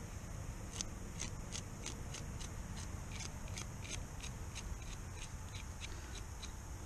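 Butter knife scraping scales off a smallmouth bass, in short quick strokes about three a second.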